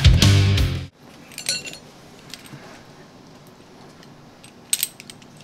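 Rock music with guitar that cuts off abruptly about a second in. It gives way to a quiet room with a few light metallic clinks and clicks from drum hardware and cymbal stands being set up.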